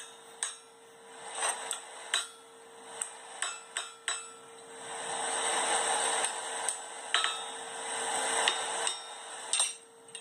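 Blacksmith's hammer striking steel on an anvil: about a dozen irregular blows, some leaving a short metallic ring, over a steady hum.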